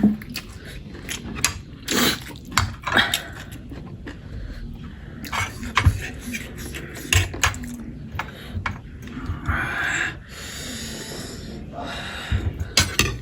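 Eating noises with sniffing and hard breaths through the nose and mouth, a reaction to very spicy food. Short clicks and smacks run throughout, with a longer hissing breath about ten seconds in.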